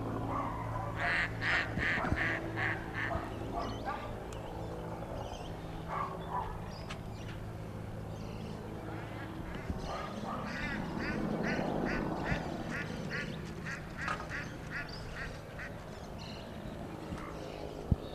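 Ducks quacking in quick runs of short calls, about three a second: one run near the start and a longer one from about ten seconds in.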